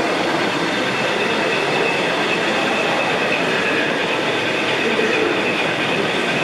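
Model diesel locomotive running slowly, a steady sound with a faint high-pitched whine.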